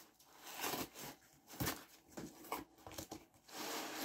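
A shipping package being opened and its contents handled by hand: irregular scraping and rustling, with a sharp knock about a second and a half in.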